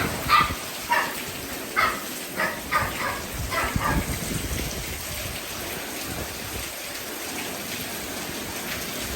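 A dog barks in a quick string of about eight short barks over the first four seconds, then stops. Steady rain hisses throughout.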